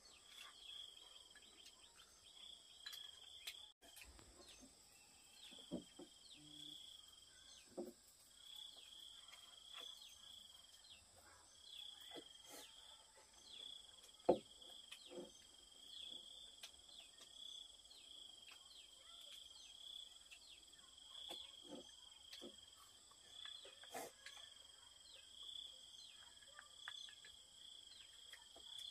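Faint insects chirping in a steady pulsing trill, with scattered light clicks and taps; one sharper click about fourteen seconds in.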